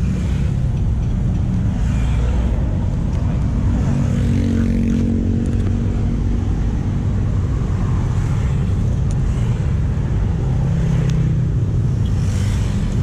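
Motorcycle engine and road noise while riding, a steady low rumble. A pitched engine note stands out for a couple of seconds near the middle.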